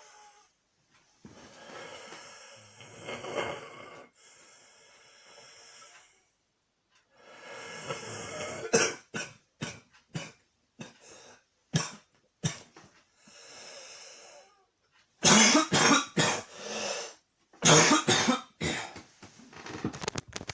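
A man with a cold coughing in fits. Long noisy breaths come first, then a string of single coughs, then two loud runs of rapid coughs about three-quarters of the way through.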